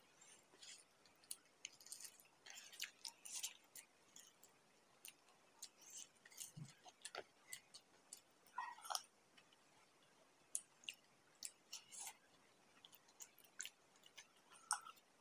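Faint close-up eating sounds: a crisp samosa being chewed, with scattered soft crunches, wet mouth clicks and sips from a glass of drink.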